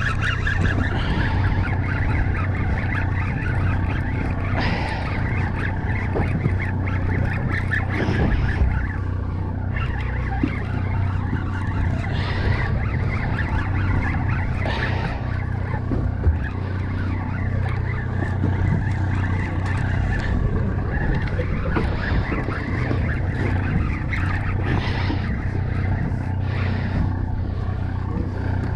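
Steady low hum of the party boat's engine under wind and water noise, with honking bird calls now and then.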